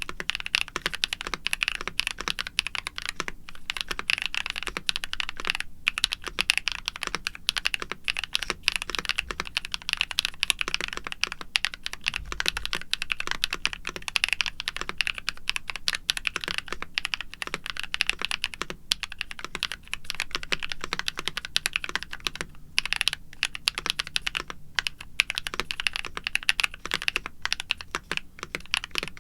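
Continuous fast typing on a NuPhy Halo65 mechanical keyboard with Gateron Night Breeze linear switches lubed with Glorious G-Lube, an aluminium plate, stock foams and doubleshot PBT keycaps. Dense key clacks with only brief pauses.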